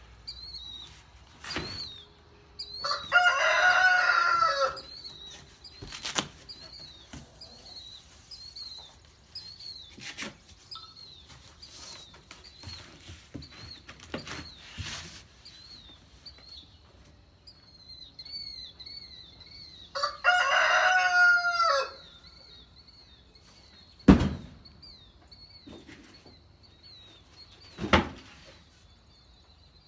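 A rooster crows twice, a few seconds in and again about two-thirds of the way through, each crow about two seconds long. A small bird chirps over and over in the background, and there are scattered sharp knocks from cardboard boxes being handled, the loudest two near the end.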